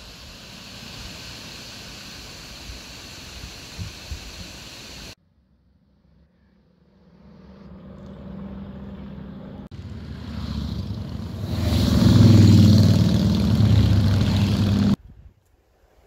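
A motor vehicle approaching on a wet road: engine hum and tyre noise grow steadily louder, are loudest about three-quarters through, and then cut off abruptly. Before it comes a few seconds of steady outdoor hiss.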